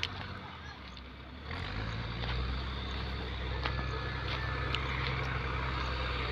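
A steady low rumble, weaker for about a second near the start, with a few faint clicks.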